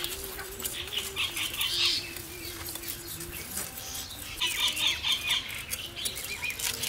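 Quick scraping and clicking of small bata fish being scaled by hand against upright boti blades, several at once, with birds chirping now and then behind it.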